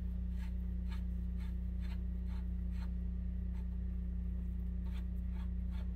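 Socket ratchet clicking as a loosened motorcycle rear axle nut is run off, with soft clicks about twice a second. A steady low hum runs underneath.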